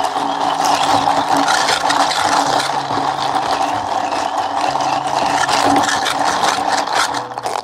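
A cafe appliance's motor running steadily with a rattling grind, over faint low background music; it cuts off suddenly at the very end.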